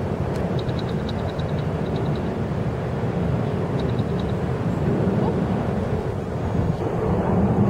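Steady low outdoor rumble with no clear single source, and brief runs of faint, rapid high ticking about a second in and again about four seconds in.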